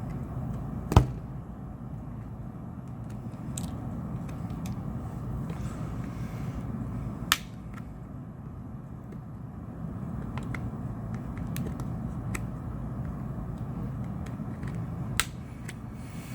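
Sharp plastic clicks and taps as pry picks work around the back cover of an LG X Power 3 phone, the loudest about a second in and two more spread later, over a steady low background hum.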